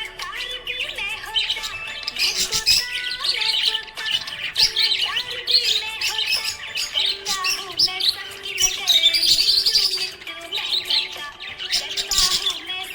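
Budgerigars chirping and warbling in quick, continuous high twitters over background music.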